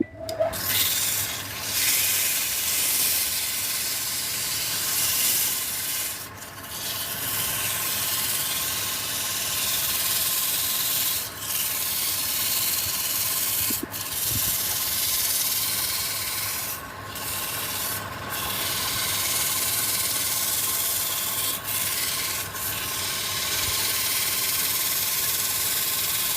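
Sanding: an abrasive rubbing steadily against the work, stopping briefly several times along the way.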